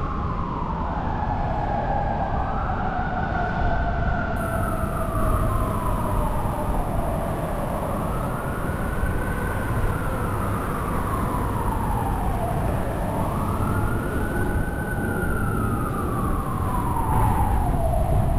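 Emergency vehicle siren on a wail, slowly rising and falling about every five seconds, with two wails overlapping at times, over a steady low rumble of street noise.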